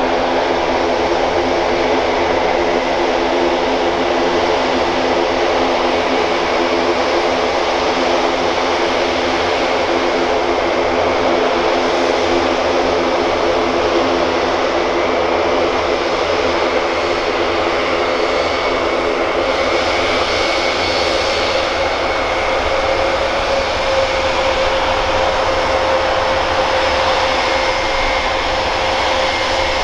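Airbus A400M Atlas's four Europrop TP400-D6 turboprops running as it taxis, a steady propeller drone with several low humming tones and a high whine. In the last third one tone rises slightly.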